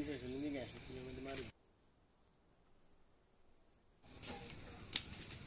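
Crickets chirping in an even train of about four or five chirps a second, with a child's voice calling briefly at the start. A single sharp snap sounds near the end.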